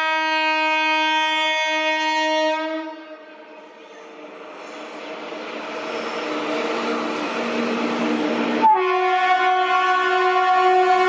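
Horn of an Indian Railways WAP-7 electric locomotive sounding a long blast that stops about three seconds in, then the rolling rumble of the approaching passenger train growing louder, and a second, slightly higher-pitched horn blast starting suddenly near the end.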